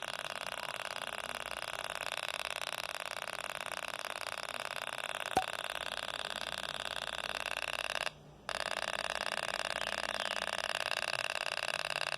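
Homemade NE555 toy sound-effect circuit buzzing through a small speaker: a steady, fast rattling buzz meant to imitate a motor or machine gun. There is a sharp click about five seconds in, and the buzz cuts out briefly a little after eight seconds before starting again.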